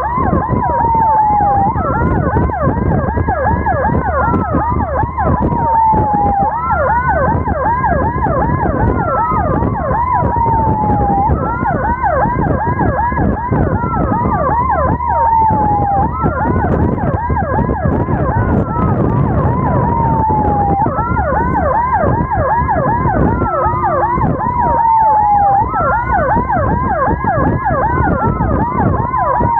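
Emergency vehicle sirens sounding together over road rumble. One is a slow wail that rises, holds high and then slides down, about every five seconds; the other is a rapid yelp that sweeps down several times a second.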